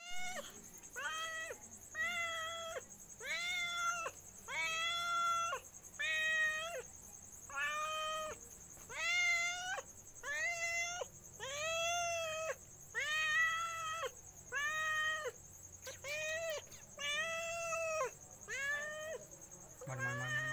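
Domestic cat meowing over and over, about one meow a second, each call rising and then falling in pitch.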